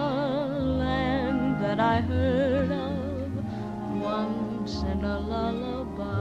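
Slow background music: a high voice with a wide vibrato sustains a melody over held low bass notes.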